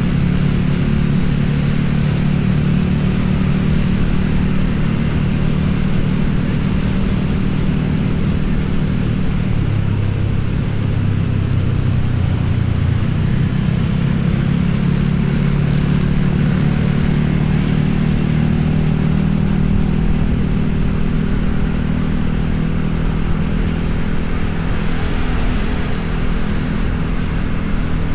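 A motor vehicle's engine running steadily, a continuous low drone. Its note dips lower for a few seconds about ten seconds in, then comes back up.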